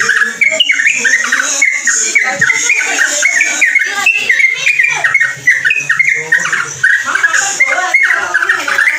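Yellow-vented bulbul (trucuk) singing a rapid, unbroken run of chattering notes.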